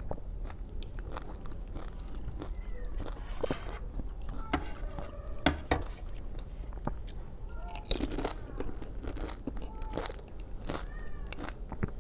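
Close-up chewing and crunching of pani puri, the crisp hollow puris filled with spiced water, with sharp bites, crackles and wet mouth clicks now and then.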